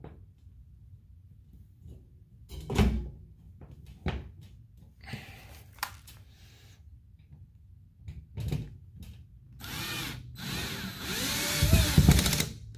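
Scattered knocks and clicks of hand tools being handled, one loud knock about three seconds in. From about ten seconds in, a cordless drill runs, driving a screw into a wall air return grille, its motor speed rising and falling as the trigger is worked.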